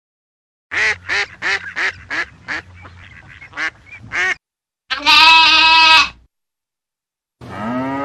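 Female mallard quacking, a run of about ten short quacks over some three and a half seconds, followed by a louder held call about a second long. Near the end a cow starts to moo, the call rising at first.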